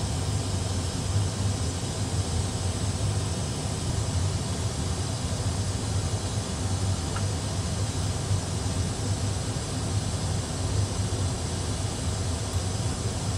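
Steady flight-deck noise in an Airbus A320 full flight simulator during an idle-thrust descent: a constant low hum under an even rushing hiss.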